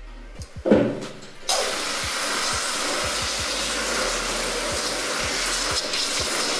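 Handheld shower sprayer running water onto a wet dog's head and coat: a steady hiss of spray that starts about a second and a half in, after a brief thud under a second in.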